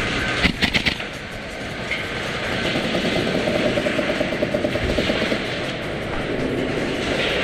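Airsoft gunfire: a quick string of four or five sharp shots about half a second in, over a steady background rush.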